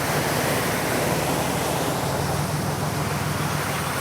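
Steady rush of heavy tropical-storm rain and water around a car being driven, with a low hum underneath.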